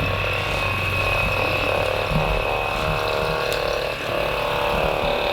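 Hypervolt percussion massage gun running steadily as it is worked over the calf muscles: an even motor hum with a high whine, dipping briefly about four seconds in.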